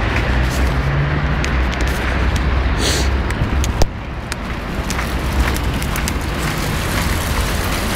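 Steady outdoor rumble on a phone microphone, of the kind heard near road traffic, with scattered small clicks of the phone being handled. A short hiss comes about three seconds in, and a sharp click just before four seconds, after which the rumble drops a little quieter.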